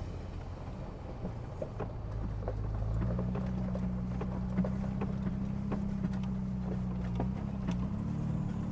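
Chevrolet Colorado ZR2 Bison pickup's engine running as it crawls along a rough dirt trail, its note stepping up in pitch about three seconds in and again near the end. Scattered light clicks and knocks run through it.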